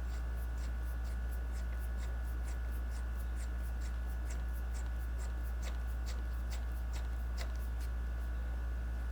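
Light, irregular clicks and ticks of hand work on small metal parts, a few each second, over a steady low electrical hum.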